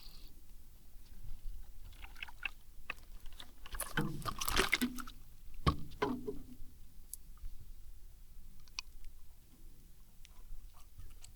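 Scattered knocks, clicks and scuffing handling noises, with a louder rustling burst about four seconds in and a sharp knock just after.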